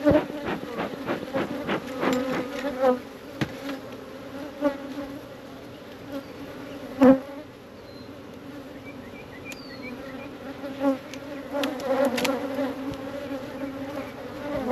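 Honeybees buzzing steadily around an open hive, with a few sharp knocks and scrapes, the loudest about seven seconds in.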